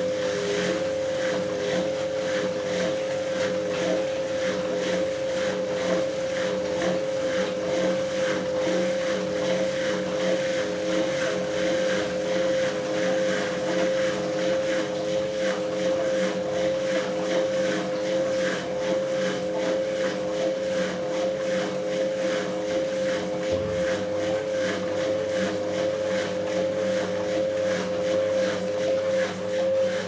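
Eudora Goldkind EU 340 front-loading washing machine on a rinse cycle: the drum motor runs with a steady whine while the wet laundry tumbles in the drum.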